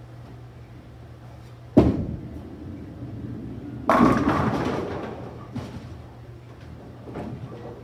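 Ten-pin bowling: a sharp thud as the ball lands on the lane, then about two seconds later the loud crash of the ball hitting the pins, rattling and dying away over a second or so, with a couple of lighter knocks after. A low steady hum lies under it all.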